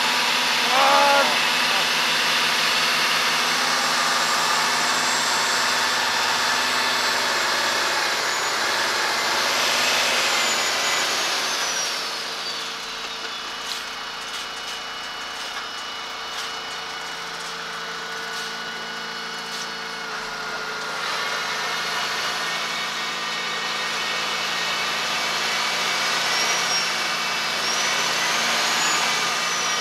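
Diesel engines of a snow-stuck lorry and the tractor towing it, running hard for the first ten seconds or so, easing off, then building again in the last third. A high whine slides down about ten seconds in, and another rises near the end.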